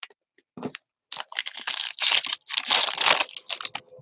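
Foil wrappers of baseball card packs crinkling and tearing as the packs are torn open, in irregular bursts, with the cards being handled.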